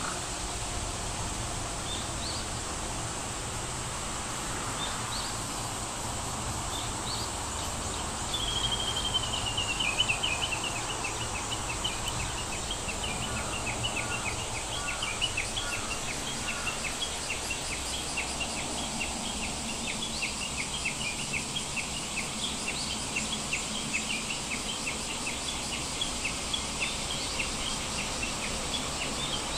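Steady background hiss with bird and insect chirping: a few high chirps, a short falling trill about a third of the way in, then a long run of rapid high chirps.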